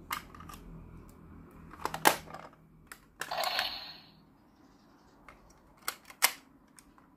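Hard plastic clicks and snaps from a toy Super Sentai weapon and gear being handled and fitted together, a handful of separate sharp clicks with the loudest about two seconds in. A short rasping burst comes around three and a half seconds in.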